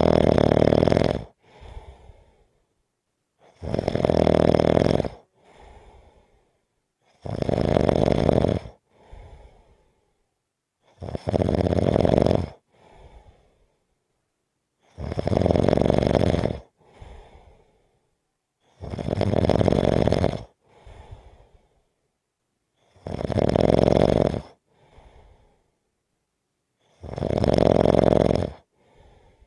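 Steady, rhythmic snoring: a loud snore on each breath in, about every four seconds, each followed a moment later by a much softer breath out. Eight snores in all.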